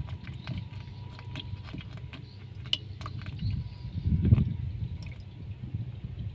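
Light water dripping and splashing, with scattered small clicks over a low rumble and a louder dull thump a little past four seconds in.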